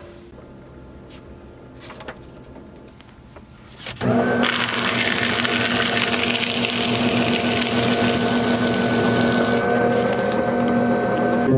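Electric paper shredder switching on about four seconds in, its motor spinning up with a rising whine and then running steadily with a hiss as it cuts a sheet of paper.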